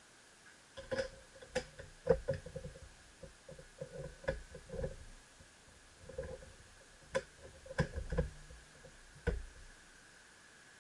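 Handling of a scoped .30-06 rifle and gear on a shooting bench: a run of scattered clicks and knocks, the sharpest about two seconds in and another cluster near the end.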